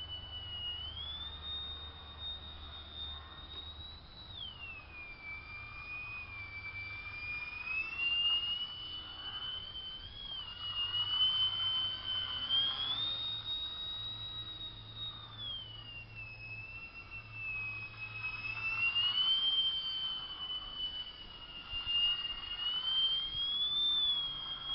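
Scratch-built 3D Troll RC biplane's motor and propeller whining in flight, one high whine that swings up and down in pitch with the throttle. It holds high for a few seconds, slides down, then climbs back, several times over, and grows louder as the plane passes close.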